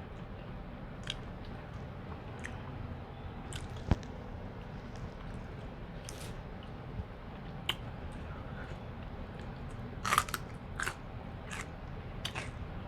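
Close-miked eating of a seafood boil: chewing and biting with scattered small crunches and clicks, a single sharp click about four seconds in and a quick run of clicks near the end.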